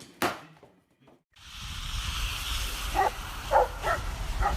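A dog giving four short barks in the last second and a half, over a steady rushing background noise.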